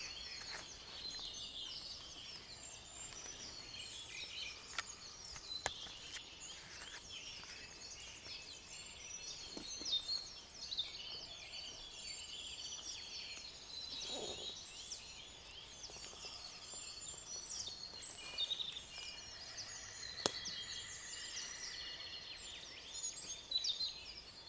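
Faint dawn chorus: many small songbirds singing at once in quick overlapping chirps and trills, with a few soft clicks.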